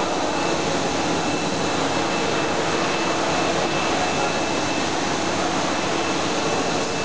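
PVC profile extrusion line running: a steady, even machinery hum and hiss, with a faint thin whine from about two seconds in.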